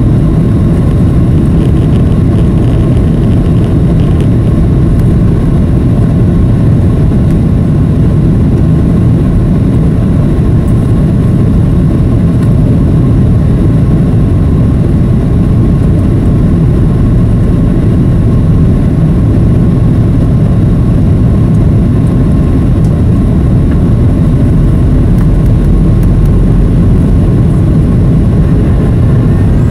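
Steady cabin noise of a Boeing 737 in flight, heard at a window seat over the wing: a loud, even low rumble of engines and rushing air with a faint steady whine.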